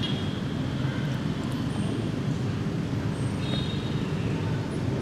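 Steady low outdoor rumble with a faint, brief high chirping about three and a half seconds in.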